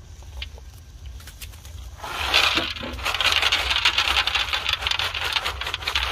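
Peanuts poured from a plastic bottle onto a metal tray, a dense rattle of many small hits on the steel that starts about two seconds in and keeps going.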